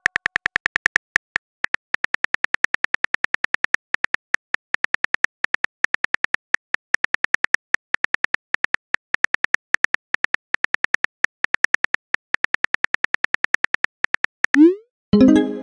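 Phone keyboard typing sound effect: rapid, even key clicks, about six a second with brief pauses. Near the end a short rising swoosh and a chime as the text message is sent.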